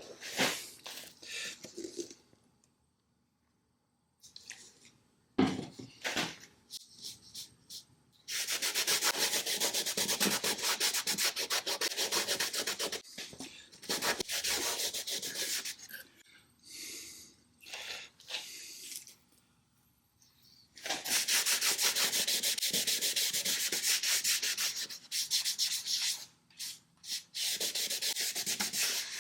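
Sanding on the fiberglass-and-cedar hull of a wooden kayak under repair: long stretches of steady scratchy rubbing that stop and restart several times, with a few short knocks in the first seconds.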